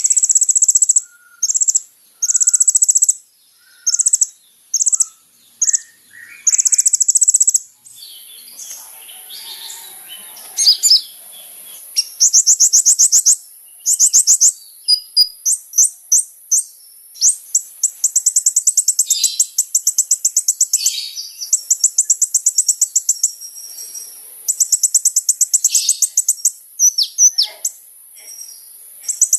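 Song of a kolibri ninja sunbird: bursts of rapid, very high-pitched trills, each lasting a fraction of a second to about a second, repeated with short pauses. From about 8 seconds in, the song turns into faster runs of chattering notes.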